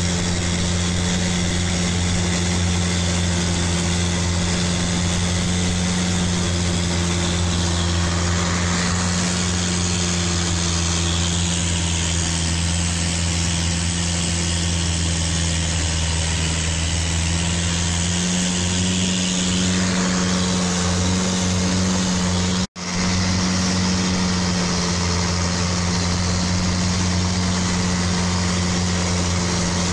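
Long-tail boat's engine running steadily under way, a low drone over the hiss of water and wind. Its pitch rises slightly about two-thirds of the way through, and the sound cuts out for an instant a little later.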